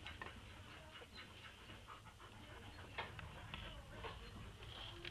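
Faint sounds of a Border Collie mother and her young puppies moving about on a rug, with soft panting and a few small clicks and taps, the clearest about three seconds in.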